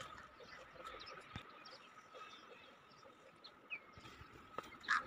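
Quiet outdoor ambience with a faint steady high tone, two soft clicks and a brief faint chirp about two-thirds of the way in.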